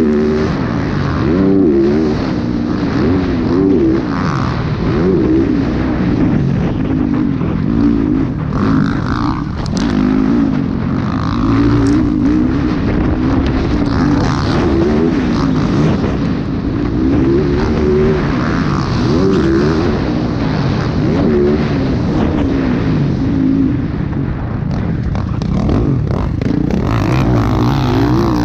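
Motocross dirt bike engine heard from on board while racing, its revs rising and falling constantly as the throttle is worked through the track.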